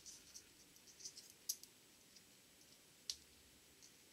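Faint, scattered light clicks of metal parts on a Borg-Warner T-10 transmission mainshaft as it is handled in gloved hands. The clearest clicks come about a second and a half in and about three seconds in.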